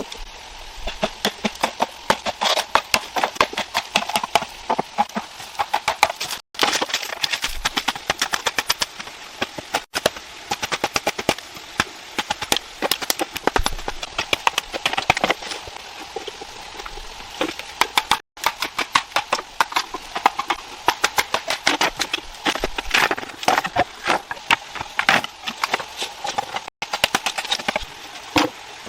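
Rapid, irregular tapping and knocking, many strikes a second, over a steady hiss, cut off abruptly several times.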